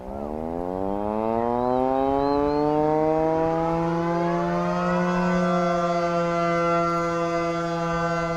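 Air-raid siren winding up: its wail rises in pitch over about the first five seconds, then holds steady.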